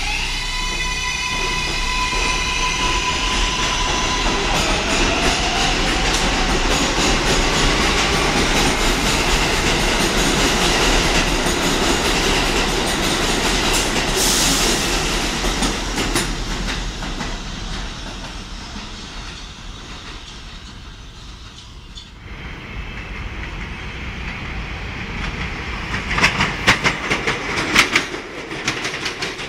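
A 7 subway train pulls away from the platform, its electric traction motors whining in several steady tones and then rising in pitch as wheel rumble builds and fades. About 22 seconds in, a second 7 train, an R188, passes through on the express run without stopping, its wheels clacking sharply over the rail joints.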